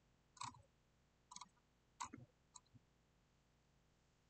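A few faint, sharp computer mouse clicks, about six of them over the first three seconds, as a slider in the software is dragged and set.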